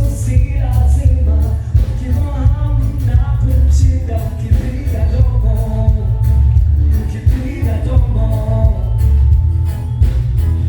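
Loud music with singing over a heavy, steady bass beat.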